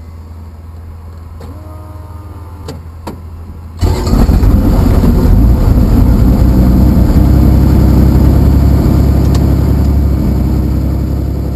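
Robinson R44 Raven II's six-cylinder Lycoming piston engine starting: a low steady hum and two clicks, then about four seconds in the engine catches suddenly and runs loudly, easing slightly near the end.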